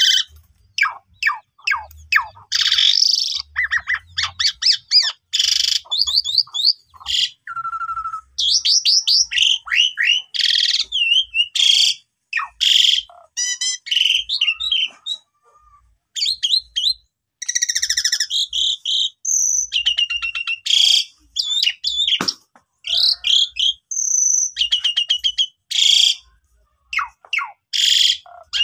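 Asian pied myna (jalak suren) singing loudly and at length: a varied run of whistled notes, fast chattering trills and harsh rasping phrases, with short breaks between them.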